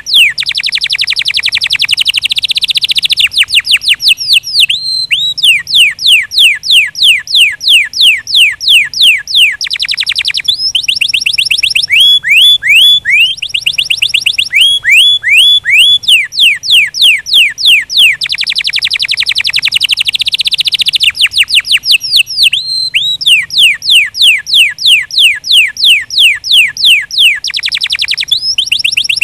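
A domestic canary singing a long song of repeated phrases: runs of quick, down-sweeping whistled notes at about five a second, alternating with denser buzzy rolls, with only brief pauses between tours.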